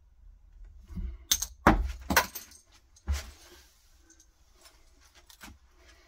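Cast-iron bench vise being wound in by its sliding handle to press a plastic cap onto a short shifter part: a handful of sharp metallic clicks and clinks, loudest about two seconds in, with a last one about three seconds in.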